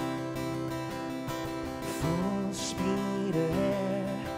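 Live acoustic guitar strumming chords as a song begins, joined about halfway through by a male voice singing held, gliding notes.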